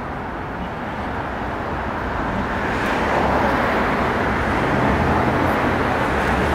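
Street traffic noise, with the steady rush of a passing motor vehicle that grows louder about halfway through.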